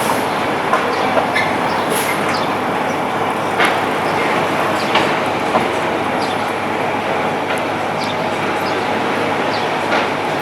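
Train running on rails: a steady rumble with occasional clicks from the wheels.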